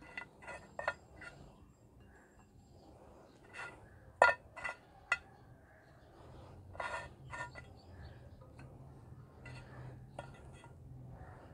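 Hard, crisp cake rusks knocked and set down on a ceramic plate: a scatter of short, dry clinks with a brief ring. The loudest one comes about four seconds in.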